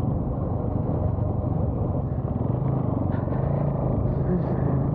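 Bajaj Pulsar NS200's single-cylinder engine running steadily while riding at an even pace, mixed with dense wind noise on the microphone.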